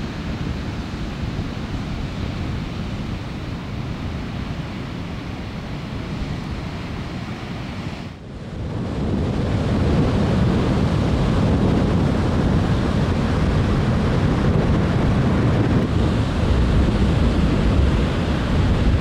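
Ocean surf breaking on a sand beach, with wind buffeting the microphone. The sound dips briefly about eight seconds in, then comes back louder.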